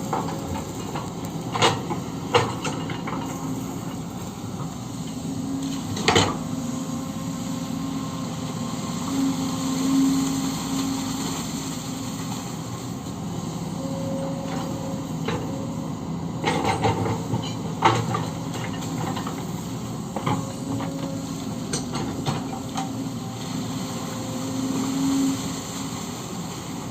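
Kobelco SK-130 hydraulic excavator running steadily while digging a ditch, its diesel engine swelling briefly under load now and then. Sharp clanks break in several times, bunched near the start, about six seconds in and a little past the middle.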